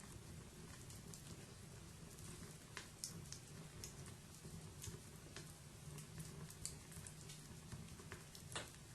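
Wood fire burning: a faint low rumble of flames with irregular sharp crackles and pops, the loudest about three seconds in and again near the end.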